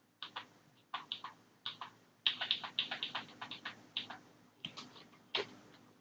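Computer keyboard typing: irregular runs of key clicks, quickest through the middle and thinning out toward the end.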